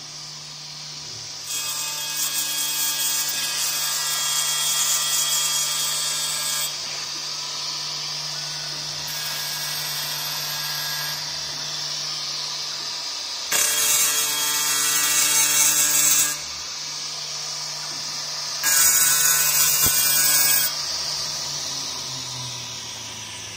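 Spindle and cutting head of a Remax 1325 CNC glass cutting and engraving machine running over a wet glass sheet, with a steady hum and high hiss. Three times the grinding grows louder and shriller as the tool bites into the glass: a long stretch of about five seconds near the start, and two shorter ones of two to three seconds later.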